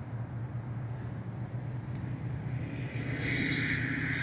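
Road traffic running steadily at a level crossing, getting louder about three seconds in as a van drives past over the tracks.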